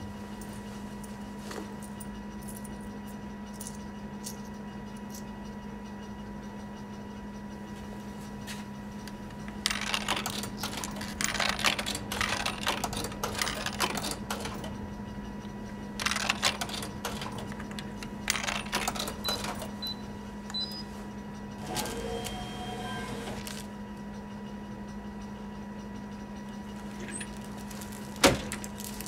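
Vending machine humming steadily, with long stretches of mechanical clicking and rattling from its coin mechanism as it is worked by hand. A few short high beeps and a brief whir follow, and one sharp knock comes near the end.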